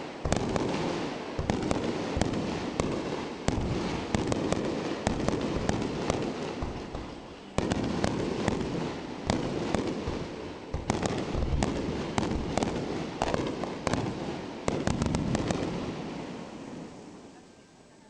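Fireworks going off close by: a dense barrage of booming shell bursts with crackling. The sound jumps louder three more times, about seven and a half, eleven and fifteen seconds in, then dies away near the end.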